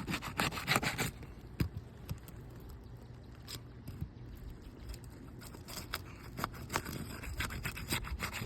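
Scraping and crackling of a pry tool worked under brittle three-tab asphalt shingles to break their seal strips. A dense run of sharp scrapes comes in the first second, then scattered clicks, then more scraping near the end.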